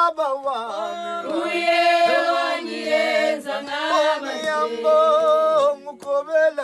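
Vocal music: voices singing, with long held notes that slide from one pitch to the next.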